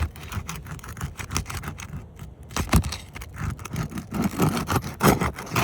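Asphalt shingles being worked loose with a metal roofing snake (shingle remover): a run of irregular scrapes, crackles and clicks, busier and louder in the second half.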